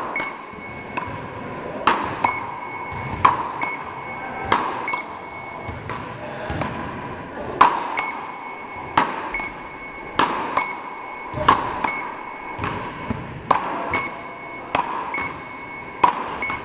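Rakettes (beach paddle ball) rally: the ball is knocked back and forth between two paddles, a sharp knock about every second, each ringing briefly in the hall's echo. A short high beep follows many of the hits, from the hit-measuring machine.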